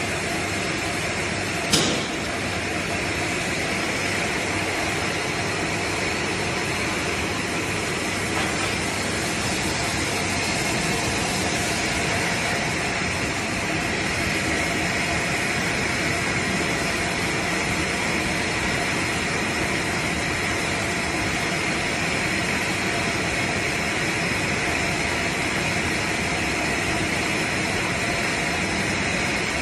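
ZJ-2500 container sterilizing machine running with its chain conveyor, a steady mechanical noise, with a single sharp click about two seconds in.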